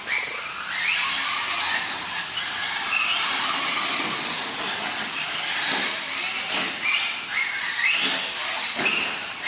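Team Associated SC10 4x4 electric RC short-course truck driving hard. Its brushless motor and gears give a high whine that rises in pitch with each burst of throttle and drops off between them, several times over.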